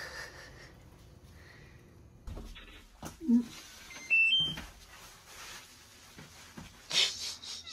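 Handling noise of someone coming indoors: a few knocks and rustles, with a short electronic beep of three tones stepping upward about four seconds in, and a louder rustle near the end.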